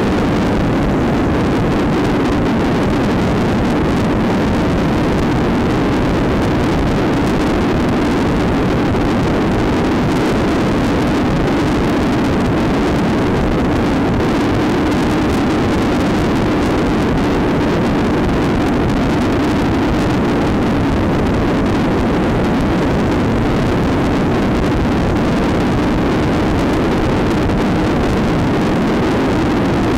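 Dirt bike engine running steadily while the bike cruises along the road, heard from the rider's own machine, with wind and road noise mixed in.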